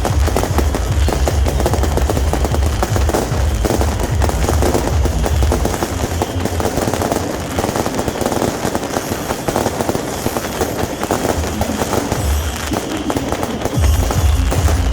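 Beehive fireworks going off: a dense, continuous crackle of massed small rockets and firecrackers. Loud music with a heavy bass plays under it, and the bass drops away in the middle and comes back near the end.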